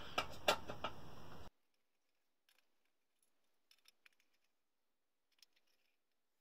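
A few light clicks of a hand screwdriver working the screws of a SteppIR controller's case, three of them in the first second and a half. The sound then cuts out abruptly to near silence, with only a few faint ticks.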